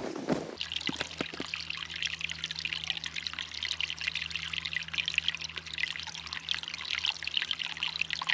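Steady trickling like running water, starting abruptly about half a second in, with a low steady hum underneath.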